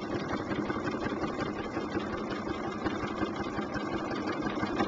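Bernina sewing machine running steadily at speed, its needle stitching with rapid, even strokes as a quilt is free-motion quilted under the darning foot.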